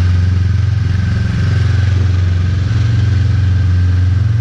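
Yamaha snowmobile engine running steadily, a deep even hum that holds one pitch with no revving.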